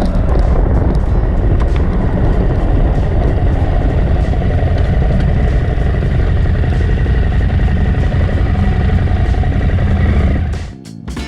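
Adventure motorcycle riding along, its engine running under a loud, steady rushing noise on the bike-mounted microphone; it cuts off sharply about ten seconds in.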